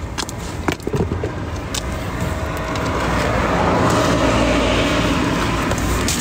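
A car going past, its noise swelling and then easing off, with a few sharp clicks of handling in the first second.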